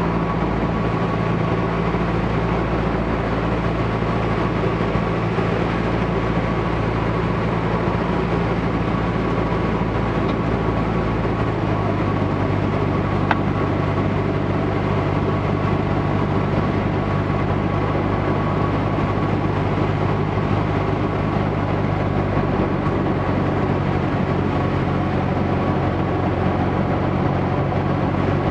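Cabin sound of a Cessna 150 in flight on final approach: the four-cylinder Continental O-200 engine and propeller drone steadily under rushing air. The engine's steady low note shifts about twelve seconds in, and there is a single click just after.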